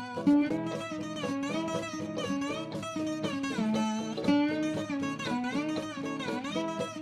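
Guitar music: a quick plucked melody of single notes, with some notes sliding in pitch.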